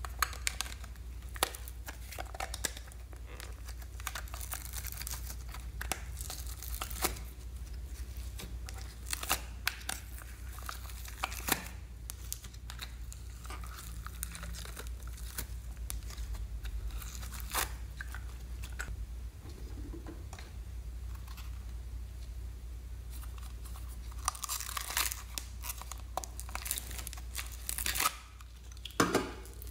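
Soft, stretchy foam slime being pulled and torn apart by hand, with crackly tearing and crinkling, and sharp clicks from plastic toy containers being handled and opened. A steady low hum runs underneath.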